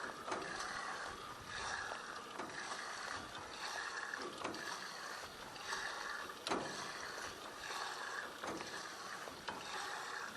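Hand pump on a fuel transfer tank being worked in steady rhythmic strokes, pumping diesel through into the machine.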